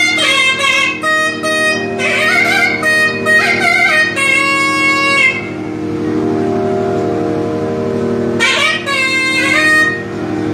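Nadhaswaram playing an ornamented melody with gliding, bending notes over a steady drone. The melody breaks off about halfway through, leaving the drone alone for a few seconds, then returns near the end.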